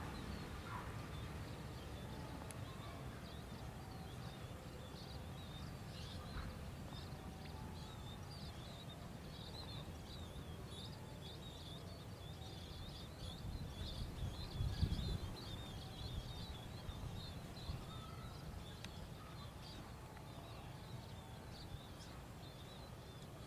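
Faint, steady low rumble of two diesel-electric locomotives running light in the distance, swelling briefly about fifteen seconds in, with birds chirping continually over it.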